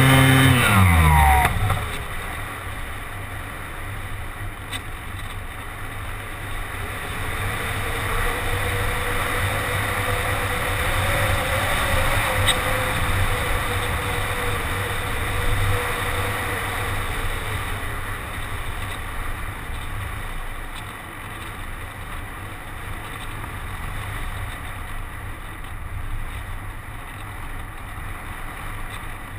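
ParkZone Radian RC motor glider's electric motor and propeller whining, then dropping in pitch and stopping about a second in as the power is cut. Steady wind noise on the onboard microphone follows while the glider flies unpowered.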